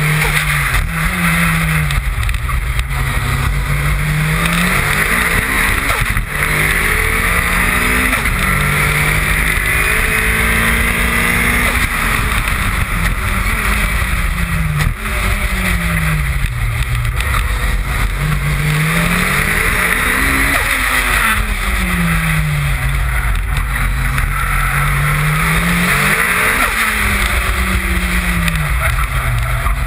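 Toyota Celica GT-Four ST185's turbocharged four-cylinder engine driven hard, the revs climbing and dropping again and again as the car accelerates, shifts and slows between corners. Heavy wind and road rush over the bumper-mounted microphone.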